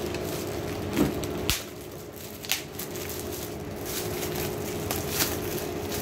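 Metallic foil gift wrap crinkling and tearing as it is pulled off a hardcover diary, with several sharp crackles, over a steady low background hum.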